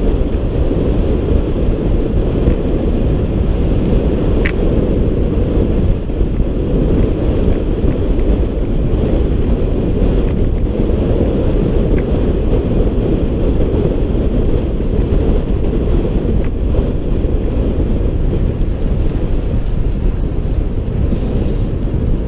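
Steady loud rush of wind over the microphone of a camera riding on a road bike descending at speed, with no change through the descent.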